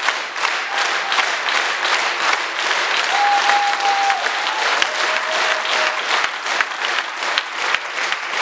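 Concert audience applauding, the clapping falling into a steady rhythm in unison.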